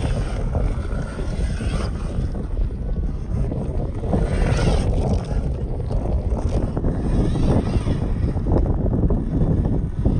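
Wind buffeting the microphone: a loud, steady low rumble that swells and eases in gusts.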